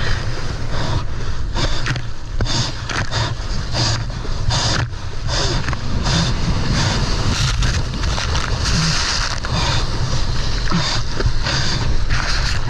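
Rough sea in a storm: continuous noise of wind and rushing water with a heavy low rumble of wind on the microphone, and repeated surges of spray and splashing.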